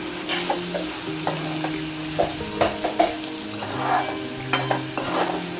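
Steel spatula scraping and stirring bitter gourd around a kadhai in irregular strokes, with the vegetables sizzling in the hot oil.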